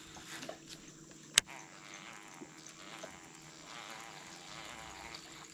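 Quiet outdoor background with a faint steady hum and hiss, broken once by a single sharp click about a second and a half in.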